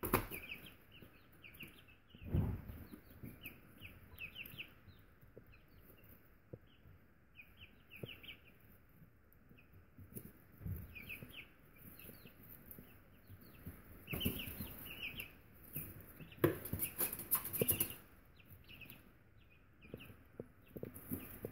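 Almost three-week-old Buff Orpington chicks peeping in short, high chirps again and again, with a few louder bursts of scuffling and rustling in the middle and later part.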